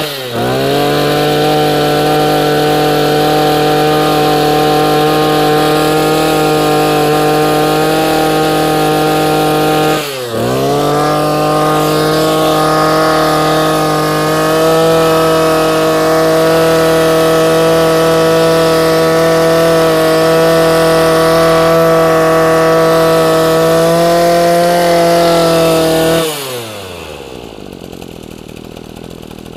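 Maruyama 26cc, 34 mm bore two-stroke brush cutter engine run at high revs. The throttle is snapped shut and reopened at the start and again about ten seconds in, so the pitch dips and climbs back each time. Near the end the throttle is released and the engine winds down to a quieter idle.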